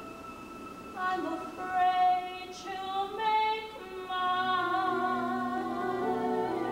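A woman singing long held notes in a musical-theatre song over sustained orchestral accompaniment; her voice enters about a second in, and a low held note joins underneath about four seconds in.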